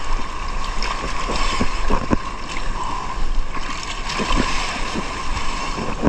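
Water splashing and sloshing in short irregular bursts over a steady rushing noise.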